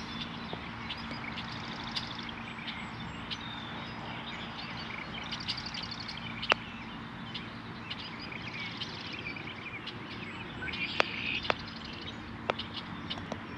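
Birds chirping and trilling in short high bursts, repeated several times, over a steady outdoor background hum, with a few sharp clicks.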